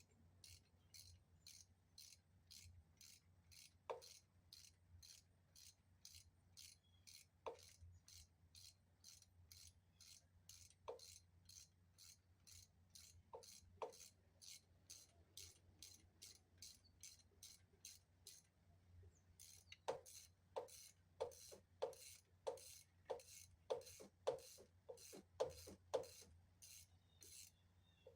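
Faint, regular ticking at about two ticks a second over a low steady hum, with occasional louder clicks or taps that come quickly one after another from about two-thirds of the way in.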